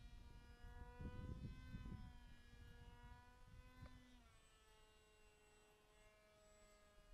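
Distant radio-controlled flying wing's motor and propeller: a faint, steady whine with several overtones that drops in pitch about four seconds in.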